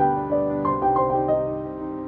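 Background music: a slow, gentle melody of single struck notes that ring and fade one after another.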